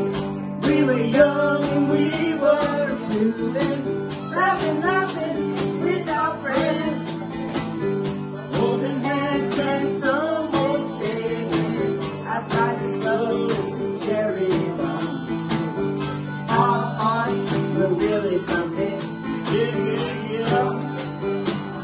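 Acoustic guitar strummed in a steady rhythm with a woman singing lead over it, a live vocal through a microphone.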